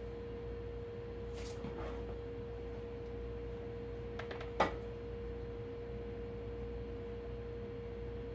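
A steady, even single-tone hum, with a few faint clicks and one sharper knock about halfway through.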